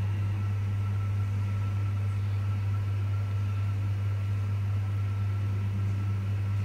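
Steady low machine hum, like a kitchen appliance or fan running, with a faint thin whine above it.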